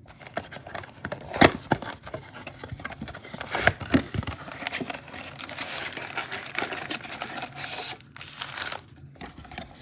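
Cardboard Panini Mosaic mega box being opened and its foil card packs pulled out: crinkling and rustling of the packs and box, with a few sharp snaps, the loudest about a second and a half in and near four seconds. It goes quieter near the end.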